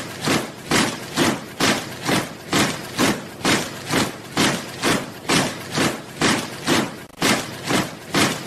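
Soldiers marching in step: boots striking the ground together in an even rhythm of about two steps a second.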